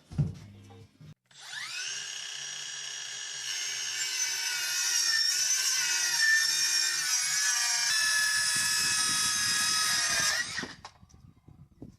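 A single knock, then an electric power drill spins up and runs at a steady high whine for about nine seconds. A rougher grinding joins in during its last couple of seconds before it winds down and stops near the end.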